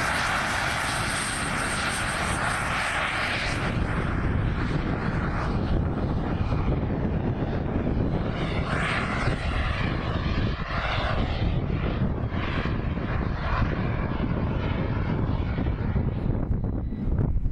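Radio-controlled model aircraft engine and propeller running at takeoff power during the takeoff roll and climb-out. Its high whine fades after about four seconds as the aircraft climbs away, with gusty wind buffeting the microphone throughout.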